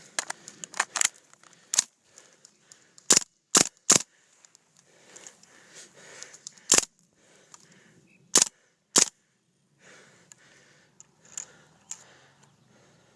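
Airsoft guns firing single shots: about seven sharp pops at irregular intervals, three in quick succession about three to four seconds in. Fainter crackling and rustling lie between them.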